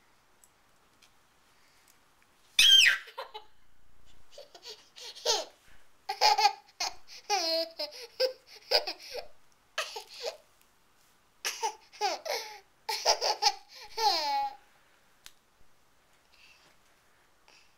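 A toddler boy laughing. A sudden high squeal comes a few seconds in, then repeated bursts of giggling and belly laughter, which stop a few seconds before the end.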